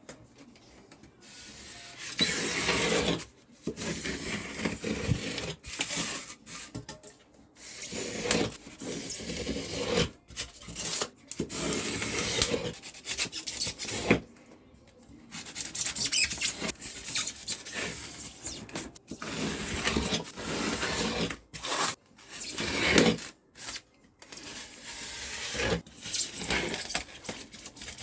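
Polystyrene foam being shaped by hand with an abrasive tool: rasping, rubbing strokes in irregular runs with short pauses between.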